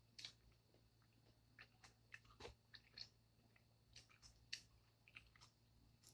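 Close-up chewing of coleslaw: soft, irregular crunches and wet mouth clicks, faint.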